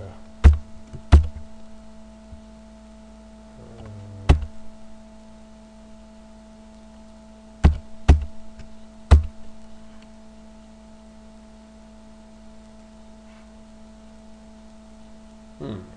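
Scattered single key presses on a computer keyboard, about six sharp clicks spread over the first nine seconds, over a steady electrical hum.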